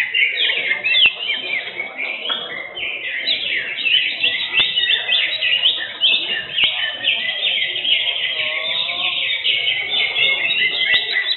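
Cucak hijau (green leafbirds) singing: a dense, unbroken stream of rapid high chirps and trills over a low crowd murmur.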